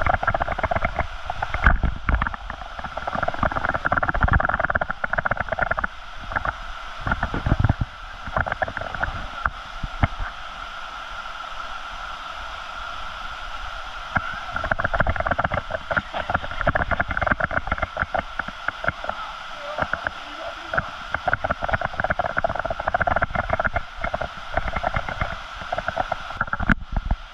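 Waterfall with rushing, splashing water, loudest in two long stretches, with irregular low rumbling gusts beneath.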